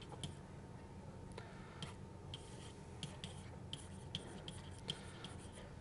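Faint, irregular light taps and scratches of a stylus writing on a pen tablet, over a low steady hum.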